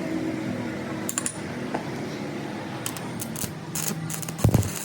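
Light metallic clinks and taps, like tools handled against metal, with a heavier low thud about four and a half seconds in. A low engine-like hum fades out in the first second or so.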